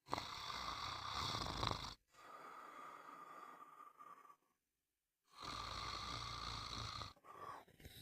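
A person snoring: a run of snores one to two seconds long, with a short dead-silent break about midway.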